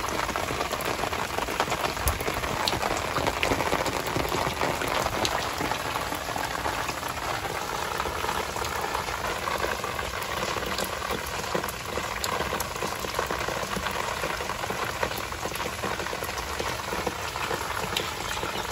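Steady rain falling on wet rooftops: a dense, even hiss of drops with scattered sharper drop ticks.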